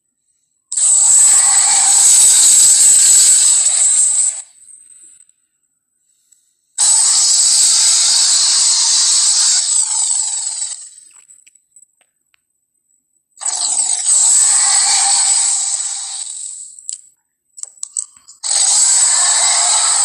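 Cartoon Tyrannosaurus roar sound effect played four times, each a harsh, hissy roar of three to four seconds with short silences between; the fourth starts near the end.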